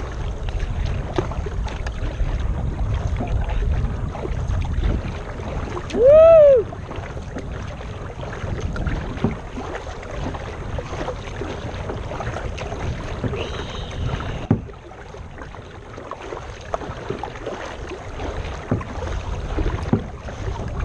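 Kayak out on a river with wind rumbling on the microphone and a few light knocks, the wind easing off about two-thirds of the way through. About six seconds in, a single short, loud call rises and falls in pitch.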